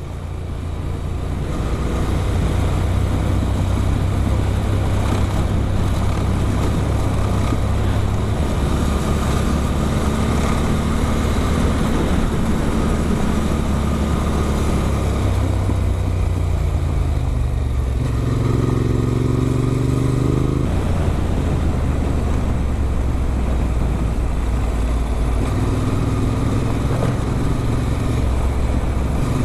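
Adventure motorcycle with an Arrow exhaust running under way, with wind noise on the microphone. The engine note is steady, climbs a little past halfway as the revs rise, then drops back.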